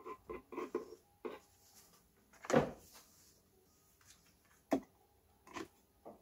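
Long metal tweezers working inside a small glass terrarium: scattered light clicks and taps, with one louder bump about two and a half seconds in and a few sharp clicks near the end.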